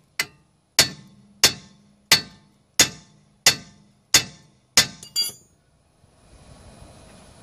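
Hammer striking the steel steering knuckle about nine times, roughly one and a half blows a second, each a sharp ringing clang, to jar the lower control arm loose. The blows stop about five seconds in, and a second later an air compressor starts up and runs with a steady hum.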